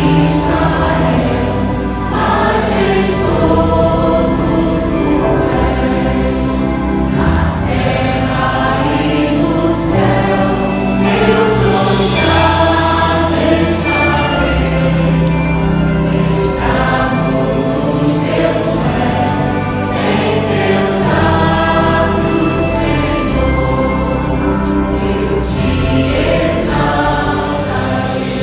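A vocal group singing a Christian worship song in chorus over instrumental backing, with sustained bass notes and a steady beat underneath.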